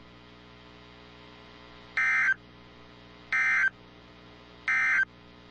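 Three short bursts of EAS digital data, the SAME end-of-message code, sent by an Emergency Alert System encoder over NOAA Weather Radio. They start about two seconds in and come about 1.3 seconds apart, marking the end of the alert message. A faint steady hum of the broadcast lies between them.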